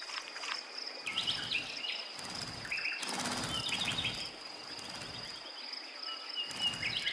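Sparrows and European goldfinches bathing in shallow water, beating their wings to wash mites from their feathers: about five short bursts of splashing and wing flutter, with brief chirps between them. A steady high insect-like whine runs under it.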